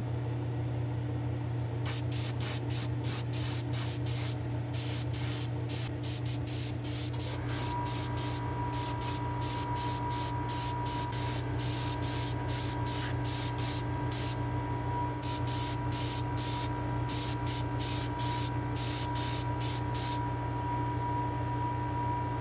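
Airbrush spraying Spectraflame green urethane paint onto a diecast car body in many short bursts of hiss over a steady hum. A steady whine joins about a third of the way in.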